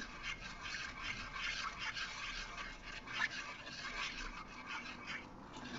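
Wooden spatula stirring a thin sweet-and-sour sauce in a nonstick wok: faint, irregular scraping and rubbing strokes against the pan as the sauce heats to thicken.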